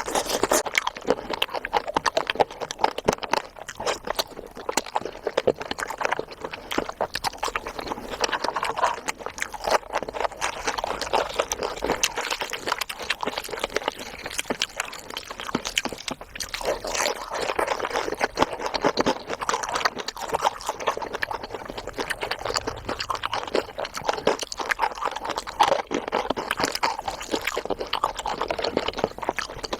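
Close-miked chewing of cheesy chicken: a steady, dense run of small mouth clicks and smacks.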